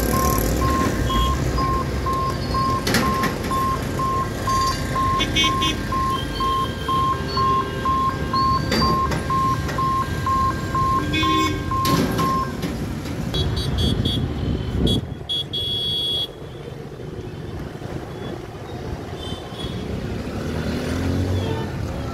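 Level-crossing warning hooter beeping in an even, steady pulse as the boom barriers come down, signalling that the gates are closing for an approaching train. It stops about halfway through, leaving road traffic noise with a few short vehicle horn toots.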